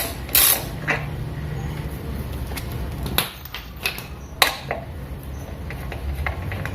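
Hand tools working on a motorcycle's rear brake caliper: a short rasping burst at the start, then a few sharp metallic clicks and knocks with small ticks in between, over a low steady hum.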